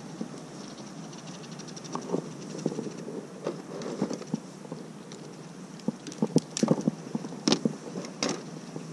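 Scattered clicks and knocks of gear being handled on a plastic fishing kayak, with a cluster of sharper knocks about six to eight seconds in, over a steady hiss of wind and water.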